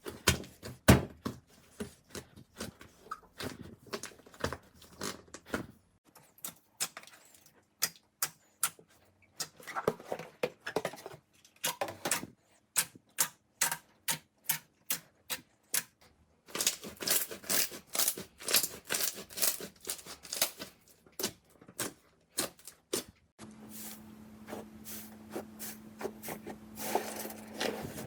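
Slime being squeezed, poked and pressed by hand, making quick runs of sticky clicks and air-pocket pops that change in character every few seconds. Near the end a steady low hum sits under the clicking.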